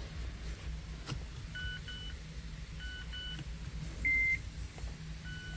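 Electronic beeps inside a 2017 Mazda 3: several brief, fainter chimes, then one louder single beep about four seconds in, over a low steady hum.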